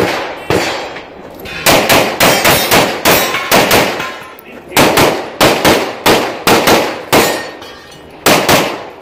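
Handgun fired in rapid strings at close range, about three shots a second, with short breaks about a second in, about four and a half seconds in, and about eight seconds in as the shooter moves between positions.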